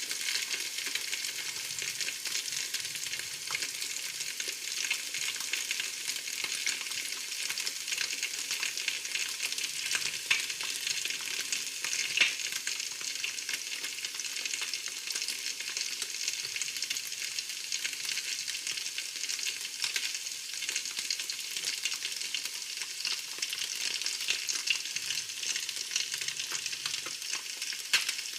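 Food frying in hot oil in a pan: a steady high hiss full of fine crackles and spits, with a few louder pops.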